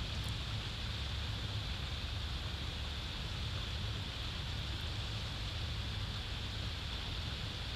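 Steady outdoor background noise on a nest-cam microphone: a low, unsteady rumble under an even hiss.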